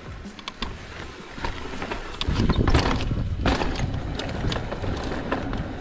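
Mountain bike riding over sandstone slickrock: tyre rumble with many sharp clicks and rattles from the bike, and wind buffeting the microphone. It gets louder from about two seconds in to about three and a half seconds in.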